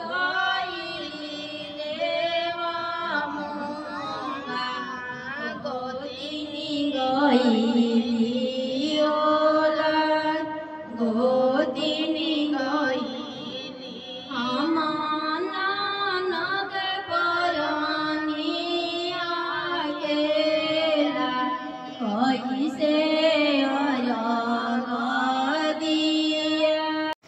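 A woman singing a slow devotional song in long, gliding, held notes.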